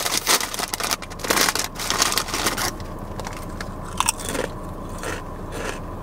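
A crinkly chip bag rustles for the first two or three seconds, then a Sun Chips multigrain chip is bitten with a sharp crunch about four seconds in, followed by crunchy chewing.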